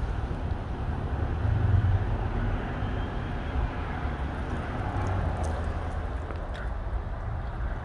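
Strong wind gusting against the microphone: a rumbling, uneven buffeting with a steady rush of noise, swelling about two seconds in and again around five seconds.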